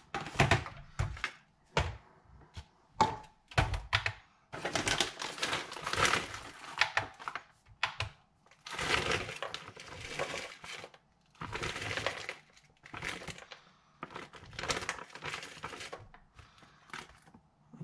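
A plastic bag of frozen black forest fruits crinkling in irregular bursts as it is handled, with sharp clicks of frozen berries dropping into a plastic tub.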